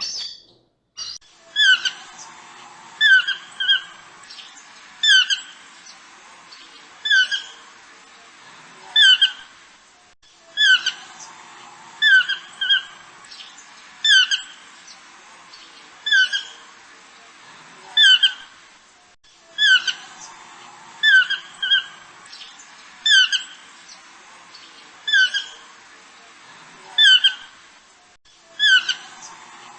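A bird squawking: short, sharp calls in quick pairs or triples, repeating about every two seconds.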